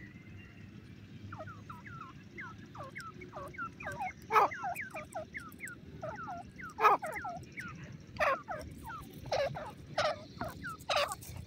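Female grey francolin calling in a rapid run of soft chirps, many short falling notes, with several louder calls standing out among them.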